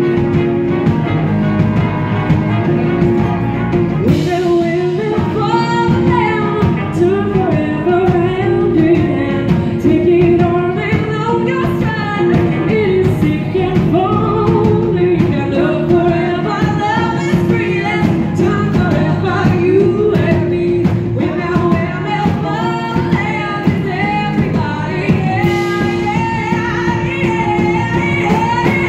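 Live band playing a rock song: electric guitar, bass guitar and drums with a horn section of trumpet, trombone and saxophone. A woman sings lead through most of it, starting about four seconds in.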